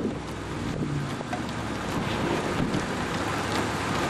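Wind buffeting the camera microphone: a steady rush of noise with a faint low rumble beneath it.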